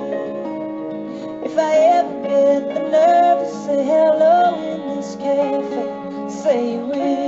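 Song playing: guitar with sustained notes beneath, and a singing voice carrying a wordless, bending melody line from about a second and a half in.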